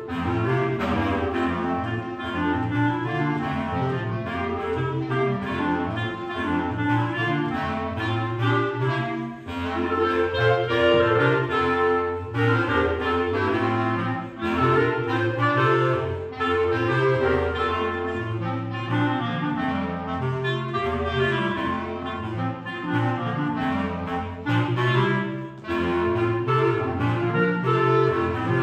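Clarinet quartet of three clarinets and a bass clarinet playing in parts, with the bass clarinet's low notes under the upper voices. The music moves in many quick notes, with brief breaks between phrases about 9, 14 and 25 seconds in.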